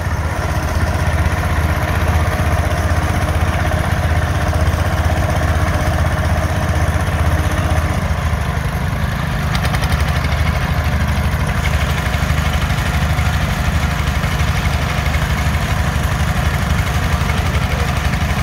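Two garden tractor engines, a Sears and a Wheel Horse, running steadily under load as the pair hitched together drag a weight sled in a tractor pull.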